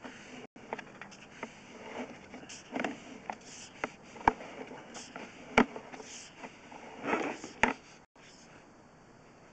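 Sewer inspection camera pushrod being fed through the line from the cleanout: irregular clicks, knocks and short scraping noises, with three sharp knocks in the second half, the loudest about halfway through.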